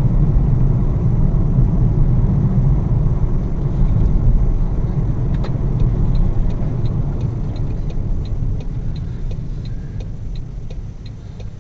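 Car cabin noise from a dashcam: a loud, steady low rumble of engine and road that slowly eases off. From about halfway through, the turn-signal indicator ticks at an even pace of roughly twice a second.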